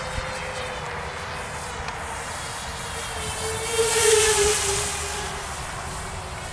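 Walkera F210 racing quadcopter's motors and propellers buzzing in flight as a steady whine. About four seconds in it grows louder as the quad passes close overhead, then its pitch drops slightly as it moves away.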